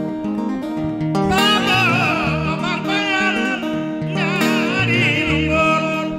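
Live music: a man sings two long, high, wavering vocal phrases over plucked guitar and band accompaniment.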